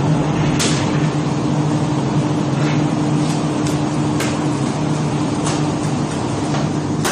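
Steady hum of processing-room machinery, two low steady tones held throughout, with about five short sharp clicks or rustles scattered through it.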